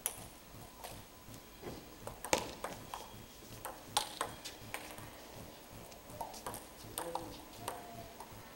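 Table tennis rally: the celluloid ball clicks sharply off rubber paddles and the table in an irregular run of hits, the loudest about two and four seconds in, thinning out after about five seconds as the point ends.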